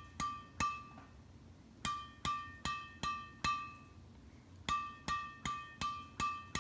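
Taps on a badminton racket's string bed (Apacs Z Slayer strung with Jnice JS-70 at 24/26 lbs), each giving a sharp strike with a short high ringing ping. About a dozen taps in three runs, two or three a second, with short pauses between the runs.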